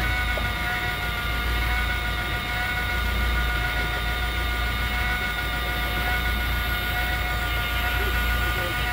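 A steady high motor whine with several even overtones over the low drone of a boat's engine. The whine falls in pitch and dies away at the very end.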